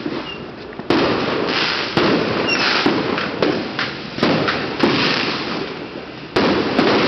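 Fireworks going off: a string of sharp bangs about a second apart, each trailing off into crackle and hiss.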